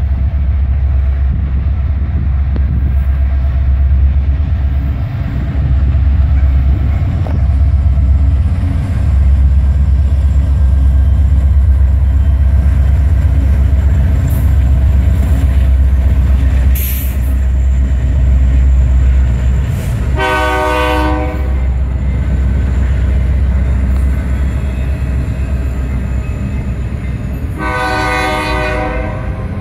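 BNSF intermodal freight train passing close by: its diesel locomotives and cars roll past with a heavy low rumble. The locomotive air horn sounds twice, about twenty seconds in and again near the end, the second blast a little longer.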